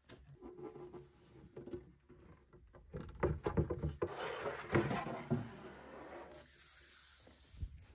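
A heavy wooden slab being set onto a wooden stump base and shifted into place: a run of knocks and scrapes of wood on wood about three to five seconds in, then rubbing as hands sweep over the slab's surface near the end.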